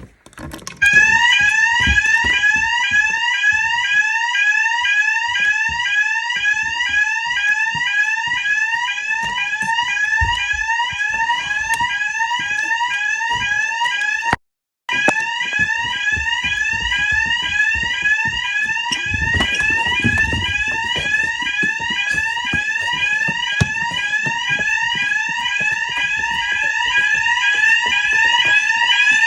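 Hotel fire alarm sounder going off during a test, a loud tone rising in quick repeated sweeps several times a second. It cuts out briefly about halfway through, then carries on.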